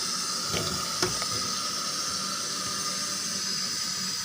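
Water running from a tap into a kettle being filled, a steady hiss, with a light knock about a second in.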